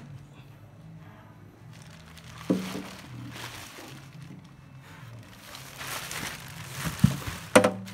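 Plastic wrapping crinkling as a heavy metal-cased power amplifier is handled and turned over, with a sharp knock about two and a half seconds in and two louder knocks near the end as the unit is bumped and set down.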